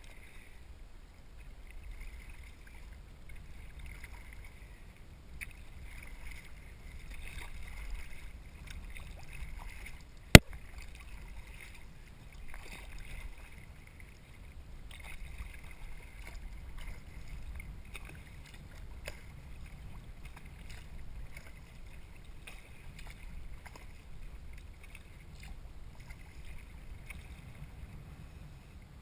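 Kayak paddling: water splashing and lapping around the paddle and hull over a steady low rumble, with small irregular ticks. A single sharp knock about ten seconds in stands out as the loudest sound.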